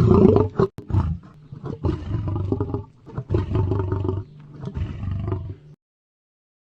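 Tiger roaring and growling in about five throaty pulses, the first the loudest. It cuts off abruptly near the six-second mark.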